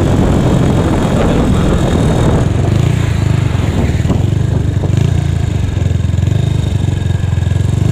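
Motorcycle engine running steadily, from a Yamaha Mio scooter fitted with a Honda Megapro engine.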